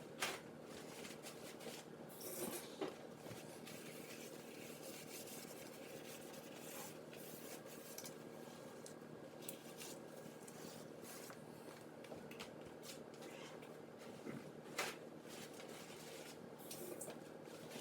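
Faint rubbing and wiping of a damp paper towel on oven-door glass, with a few light knocks.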